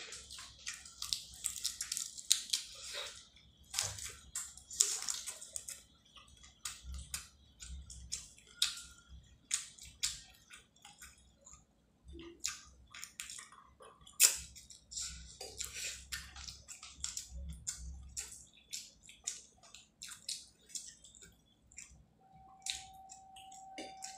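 Close-miked eating by hand: wet chewing and mouth clicks from a mouthful of rice and prawn curry, with the squish of fingers mixing rice on the plate, coming in irregular bursts.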